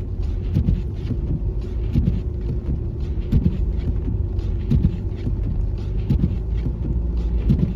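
A car driving slowly over a snow-covered road, heard from inside the cabin. There is a steady low rumble of engine and tyres, a faint steady hum, and irregular short thumps about once or twice a second.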